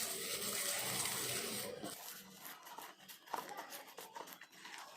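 Slime with small pieces of A4 paper in it being squeezed and mixed by hand, crunching and crackling: a dense crunch for about the first two seconds, then softer scattered crackles and pops.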